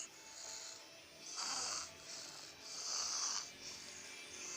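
A person snoring: loud, hissing breaths about every one and a half seconds, with softer breathing between them.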